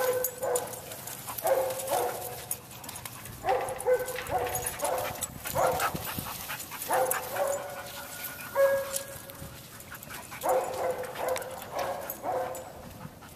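Dogs barking in short runs of several barks, one run every second or two.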